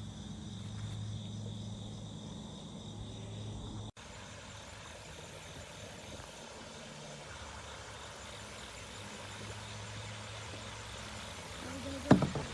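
Steady chorus of insects trilling, such as late-summer crickets, over a steady low hum. The sound breaks off abruptly for an instant at about 4 seconds, and a brief louder sound comes near the end.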